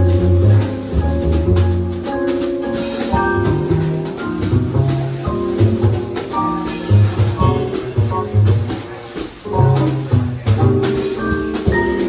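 Live small-group jazz from piano, plucked upright bass and drum kit, without the saxophone: deep bass notes underneath, piano notes and chords above, and light cymbal strokes from the drums.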